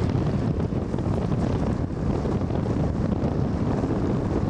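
Wind buffeting the microphone over the steady rush and splash of choppy water along a sailboat's hull under sail.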